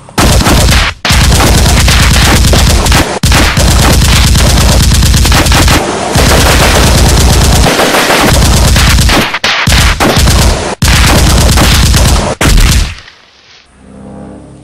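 Very loud automatic machine-gun fire in several long, rapid bursts with brief breaks between them, ending about 13 seconds in.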